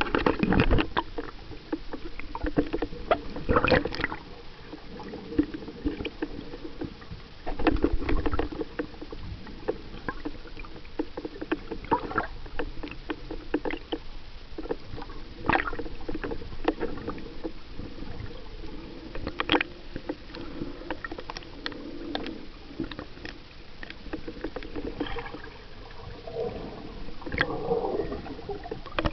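Muffled underwater sound heard through a submerged camera's housing: water and bubble noise, with many irregular clicks and knocks against the housing.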